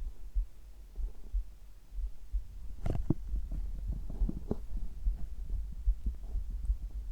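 A human heartbeat pulsing steadily as deep, regular thumps. From about three seconds in it is joined by irregular gurgling of the stomach and bowels.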